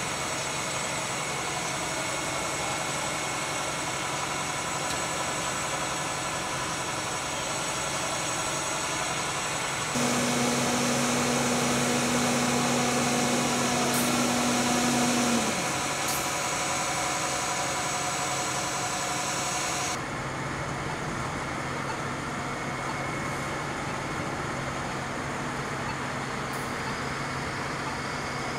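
Fire trucks' diesel engines running steadily, a hum of several even tones. About ten seconds in, a louder steady drone starts abruptly; some five seconds later it sinks in pitch and stops.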